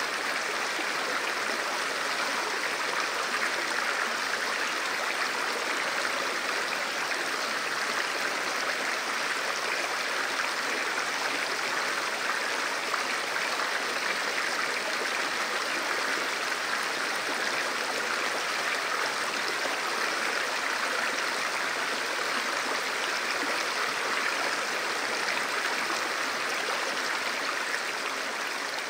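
Shallow mountain river rushing over a rocky bed: a steady, even rush of flowing water.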